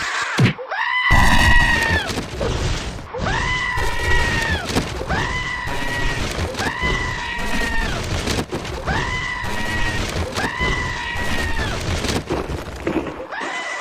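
Siren Head creature's siren call, a sound effect: a steady wailing tone sounded again and again, about seven or eight times, each call rising at the start and dropping off at the end. A loud crash comes about a second in, with shattering and smashing underneath.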